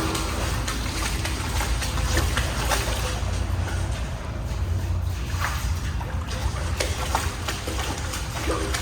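Footsteps wading through shallow water, with scattered splashes over a steady low rumble.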